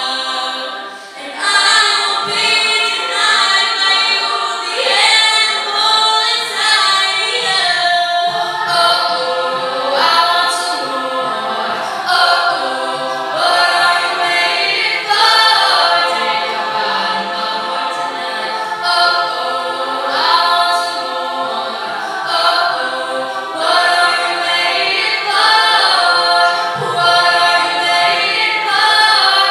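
A cappella group of mixed voices singing a pop song, a woman's lead voice over the group's backing vocals, with a brief drop in level about a second in.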